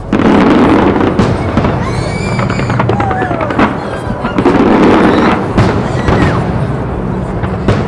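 Fireworks display: a sudden barrage of exploding shells with dense crackling and popping that starts at once, eases off briefly and surges again about halfway through.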